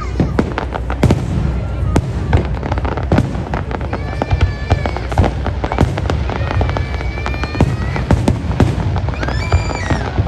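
Consumer fireworks and firecrackers going off in rapid succession: many sharp bangs and crackles one after another, with a few high held tones among them.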